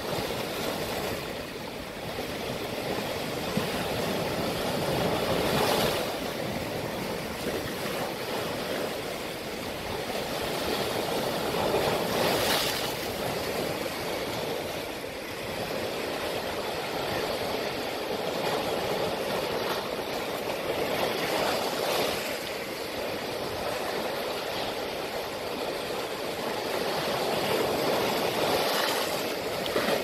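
Sea waves breaking and washing over a flat rock shelf. The rush of surf swells and eases every few seconds, with a few louder splashes.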